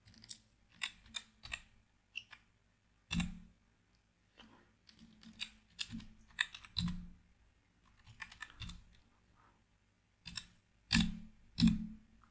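Typing on a computer keyboard: scattered keystrokes in short, irregular runs, with a few louder taps about three seconds in and near the end.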